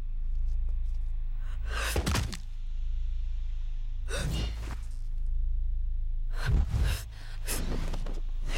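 A person's heavy, gasping breaths, one every two seconds or so, over a low steady drone.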